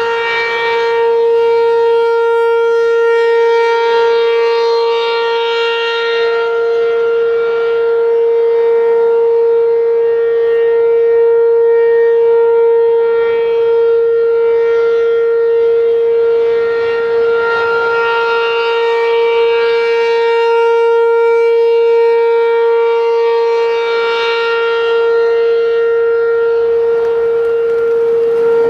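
ACA P-15 outdoor warning siren sounding a steady alert tone at one unchanging pitch, swelling and fading in strength about every six seconds.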